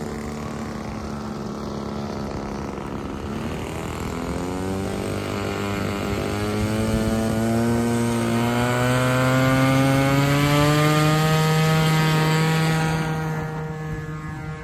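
Small fuel-burning engine of a radio-controlled model airplane running in flight. Its pitch climbs steadily from about four seconds in as it grows louder, then the sound fades near the end.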